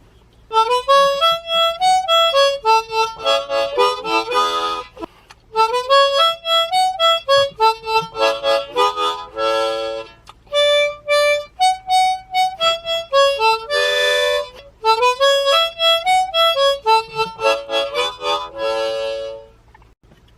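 Solo harmonica playing a simple folk melody in four phrases, mostly single notes, with a full chord closing each phrase.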